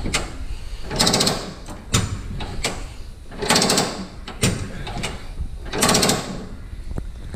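Handbrake lever of a 1977 Datsun 260Z ratcheting up three times in loud runs of clicks, with softer clicks in between. Pulling it repeatedly is how the rebuilt self-adjusting rear drum brake shoes are set.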